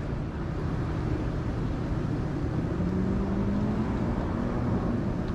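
Steady low motor rumble with a faint hum that rises slightly in pitch about three seconds in.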